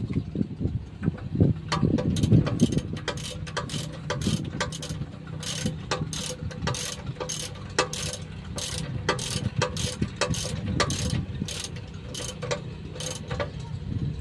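Stationary engine running steadily, with sharp mechanical clicks two or three a second from about a second and a half in.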